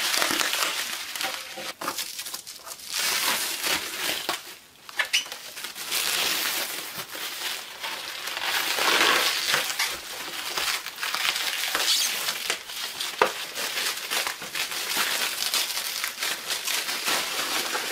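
Clear plastic stretch wrap crinkling as it is pulled and peeled off by hand, a dense continuous rustle with a short lull about four and a half seconds in.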